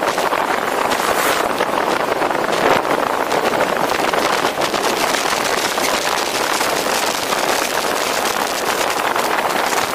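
Steady rush of wind and road noise from a moving car, picked up by a camera mounted on its roof.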